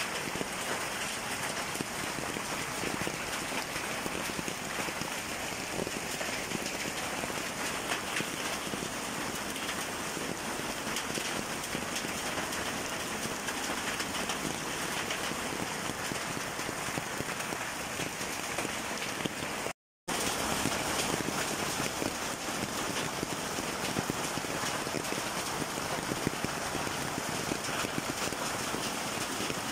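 Hailstones and heavy rain falling on the ground: a dense, steady hiss of countless small impacts. The sound drops out completely for a moment about two-thirds of the way through.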